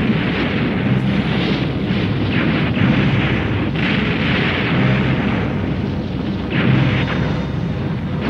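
A dense run of explosions and burning fire: rumbling blasts that swell and fade about once a second, with a few sharp cracks among them.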